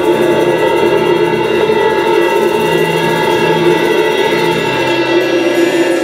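A group of amateurs playing percussion and other instruments together, including a suspended cymbal struck with a mallet, in a loud, dense, continuous wash of sound with several steady ringing tones.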